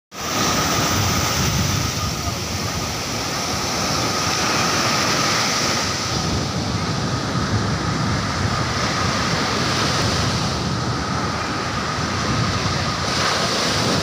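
Small waves breaking and washing up a sandy beach in a steady surf wash that swells and eases, with wind buffeting the microphone. A faint steady high whine runs under it throughout.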